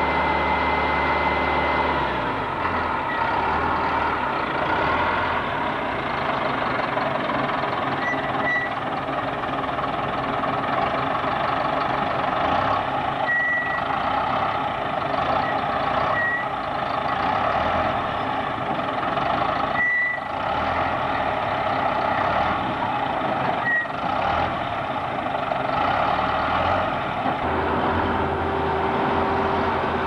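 Steady running noise of heavy vehicles, a lumber truck and a loader, with a few short high beeps at irregular times.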